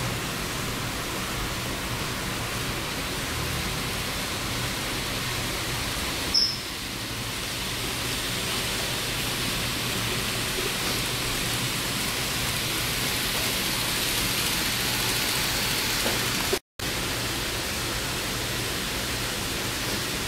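Steady hiss with a faint low hum from N-gauge model trains running on a layout's track, the hiss growing a little brighter midway. A short sharp click about six seconds in, and the sound drops out for a split second near the end.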